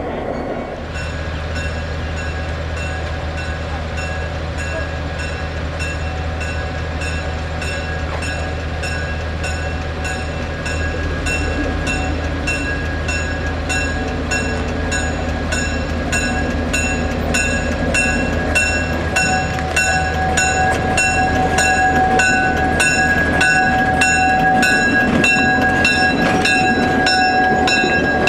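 EMD GP7 diesel locomotive running and drawing closer, its engine hum steady and getting louder, while its bell rings at an even beat of roughly one and a half strokes a second. A steady high whine grows stronger as the locomotive comes alongside.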